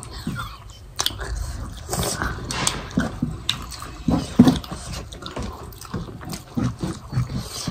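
Close-up eating sounds: wet chewing and lip smacks, with rice and curry being mixed by hand. They come as many short, irregular clicks.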